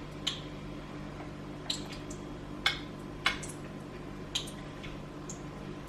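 Copha melting in a pan: a handful of faint, scattered pops and ticks over a steady low hum.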